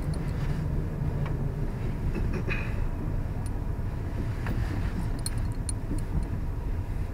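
Road and engine noise of a moving car heard inside its cabin: a steady low rumble, with a few light clicks and rattles along the way.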